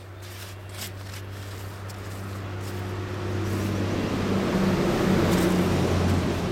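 A motor vehicle's engine running with a steady hum that grows louder as it draws near, loudest about five seconds in.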